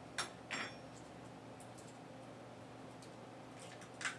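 An egg being cracked and opened: a few light sharp clicks and clinks of the shell, two close together near the start, faint ticking in between, and one sharper click near the end.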